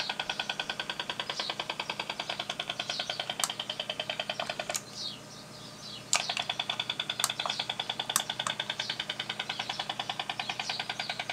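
Over-the-horizon radar interference on the 17-metre band: a rapid, even pulsing buzz received in AM mode and heard through a Yaesu FT-817 transceiver's speaker. It stops for about a second and a half just before the middle, between two sharp clicks, and a few more single clicks fall through it.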